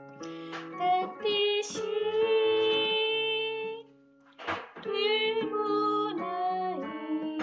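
A solo voice singing a slow hymn line over sustained chords played on a digital piano. The voice holds one long note in the middle of the phrase, breaks briefly for a breath about four seconds in, then starts the next phrase.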